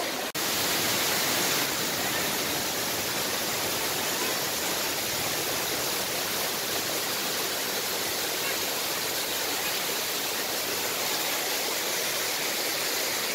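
Steady rush of waterfalls pouring down a rock cliff face into a rocky river, with a brief dropout about a third of a second in.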